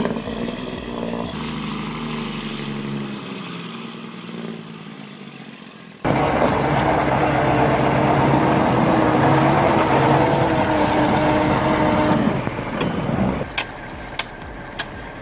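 Heavy truck engine running. The first stretch is quieter, with a falling engine note. About six seconds in the sound cuts abruptly to a much louder, steady engine note that stops about twelve seconds in, leaving faint sharp clicks.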